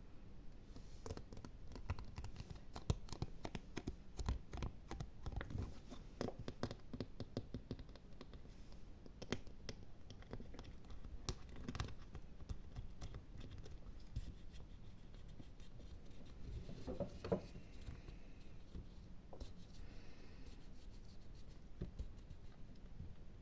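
ASMR scratching and gripping triggers: fingers scratching and gripping an object close to the microphone, making a dense, irregular run of small scratches and clicks.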